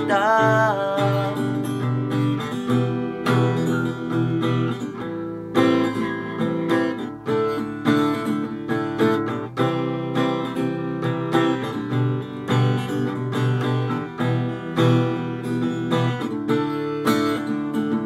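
Instrumental break of a self-composed love song, led by strummed acoustic guitar chords over a low bass line. A held sung note trails off right at the start.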